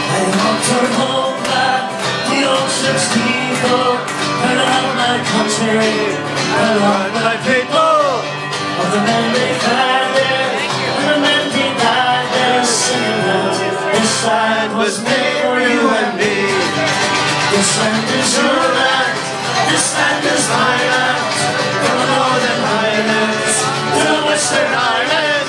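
Live folk band music with guitar and singing, played loud and without a break, heard over a bar crowd.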